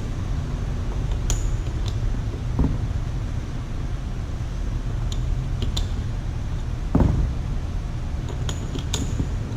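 Light metallic clicks and clinks of differential gears and cross pin being handled and test-fitted, with a duller knock about seven seconds in, over a steady low hum.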